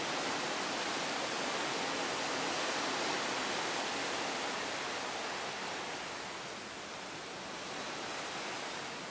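Steady rushing of sea water churning along the hull of a moving cruise ship, easing a little in the last few seconds.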